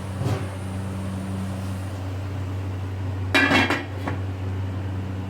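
Metal cookware being handled: a quick run of clinks and clatter from a cooking pot and its lid, about three seconds in, over a steady low hum.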